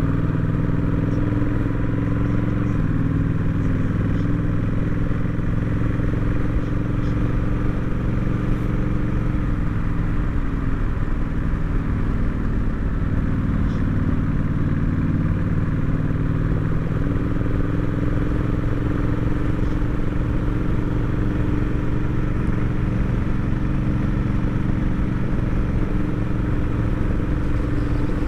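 Honda Rebel 1100 DCT motorcycle's parallel-twin engine running while riding, heard with road and wind noise; the engine note steps to a new pitch a few times.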